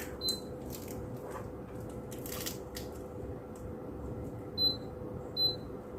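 Air purifier's touch control panel beeping as its buttons are pressed: one short high beep right at the start and two more near the end, with a few light clicks. Under it runs the steady hum of the purifier's fan.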